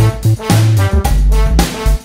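Background music with a steady beat, about two beats a second, over a bass line.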